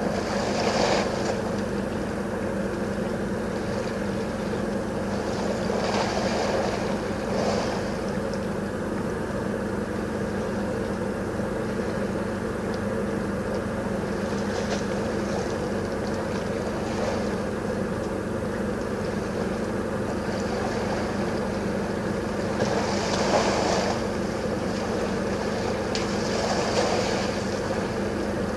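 African elephant wallowing in a muddy waterhole, with short sloshing splashes of water and mud several times, the biggest about three quarters through, over a steady low hum.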